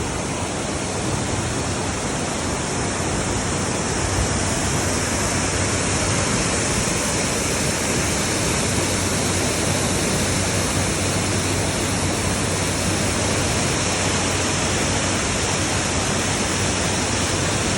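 Stream water flowing: a steady, even rush of running water with no breaks.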